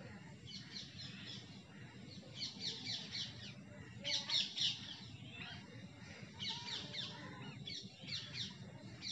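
Birds chirping in repeated bursts of quick, high, falling notes, with the loudest burst about four seconds in.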